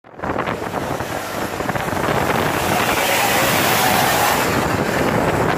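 A heavy vehicle with a loud exhaust passing close by at speed. It makes a rushing noise that builds and is loudest about four seconds in, with wind buffeting the microphone.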